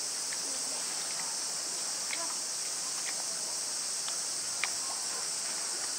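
Steady high-pitched drone of summer cicadas, with faint distant voices and a sharp click about four and a half seconds in.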